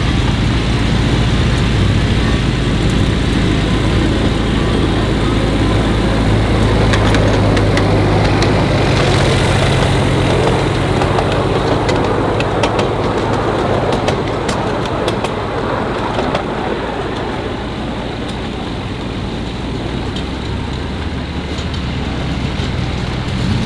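Engine of a 10¼-inch gauge miniature railway locomotive running steadily as it hauls its passenger carriages past. There is a scatter of sharp clicks about halfway through, and the sound eases off slightly as the train moves away.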